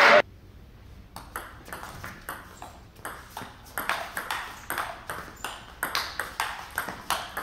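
Table tennis rally: the ball clicks sharply off the rackets and the table in a quick, uneven alternating rhythm, starting about a second in. A loud noise cuts off abruptly right at the start.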